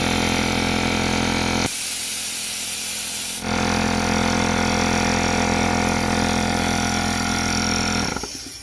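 Porter-Cable C2002 pancake air compressor running steadily, restarted once its cylinder was bled of the pressure that a sticking check valve had let back in. About two seconds in, the motor sound drops out for a second and a half under a loud rush of air hiss, then it runs again and shuts off near the end.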